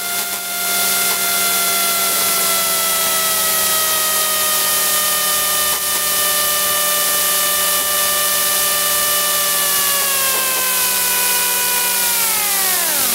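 Engine, propeller and airflow noise of an RV-4 aerobatic plane in an inverted spin attempt. A whine slowly falls in pitch and then drops steeply near the end.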